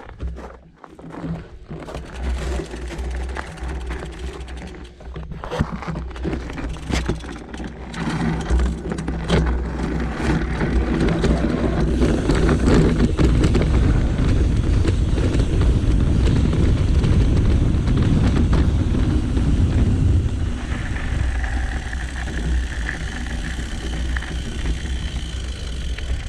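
Mountain bike ridden over rough ground: a heavy low rumble with many sharp clicks and knocks, loudest in the middle. A faint high steady whine joins near the end.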